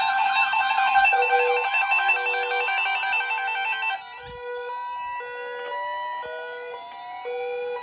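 Several weather alert radios and alarms sounding together for a weather radio alarm test: overlapping warbling siren tones over a steady warning alarm tone. About four seconds in most of them cut out, leaving repeated beeps and a slowly rising siren-like tone.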